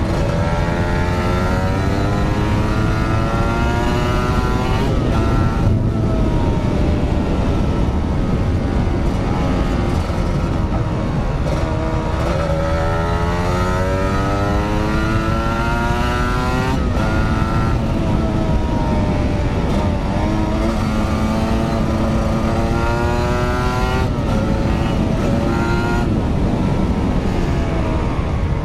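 Motorcycle engine heard from the rider's seat while riding, rising in pitch as it accelerates and dropping back several times as the throttle is opened and closed, over a steady low rush.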